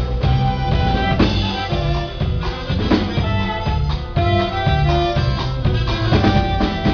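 Band playing an instrumental passage at a sound check: drums keeping a steady beat under bass notes and a held melody line.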